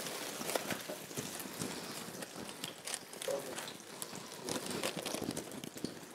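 Hot oil crackling and spitting around a brick pastry as it fries, a steady sizzle with many irregular small pops and clicks.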